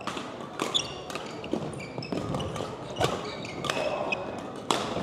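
Badminton rally: several sharp cracks of rackets striking a shuttlecock, with short high squeaks of court shoes on a hardwood gym floor between them.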